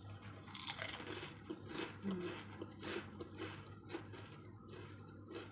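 A crisp homemade potato chip being bitten and chewed, giving a run of irregular crunches, two or three a second.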